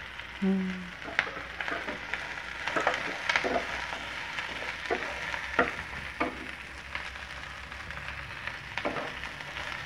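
Sliced onions, shallots, chilies, lemongrass, galangal and bay leaves sizzling in oil as they are stir-fried in a nonstick frying pan, with a spatula scraping and tapping the pan at irregular intervals. A short low hum about half a second in.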